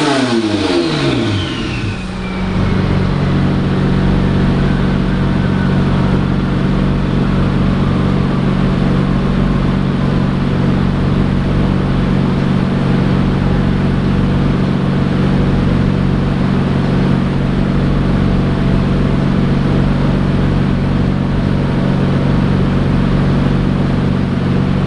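Turbocharged Toyota 2GR-FE 3.5-litre V6 coming off the throttle at the end of a dyno pull, its revs falling quickly over the first two seconds, then idling steadily.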